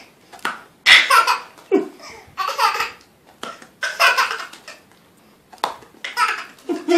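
Baby laughing in a string of short belly-laugh bursts, roughly one a second with brief pauses between.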